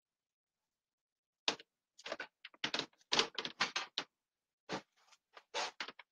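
Irregular clicks and knocks as a probe thermometer and its cable are pulled out of the oven and set down on a glass-ceramic cooktop, starting about a second and a half in.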